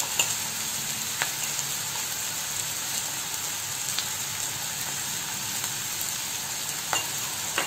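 Chopped onion and green capsicum sizzling steadily in hot oil in a non-stick pan, with a few faint clicks.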